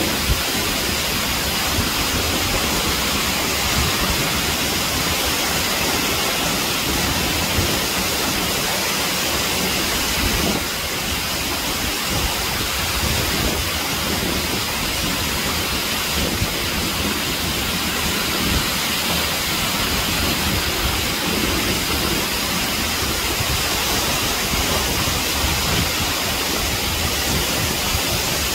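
Acquafraggia waterfall: water pouring and crashing down a steep rock face, heard close up as a steady rushing roar.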